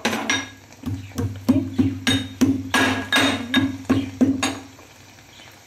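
Cardamom pods being pounded in a metal mortar with a metal pestle: a steady run of ringing metal strikes, about three a second, that stops a little over four seconds in.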